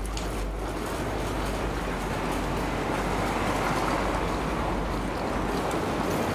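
Hydraulic elevator running as its glass car travels: a steady low hum that comes on right at the start, with an even rushing noise over it.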